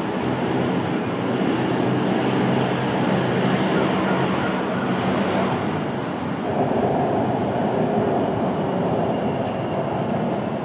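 Steady city road traffic, with the low hum of a large engine running close by, the city bus on the road beside the park.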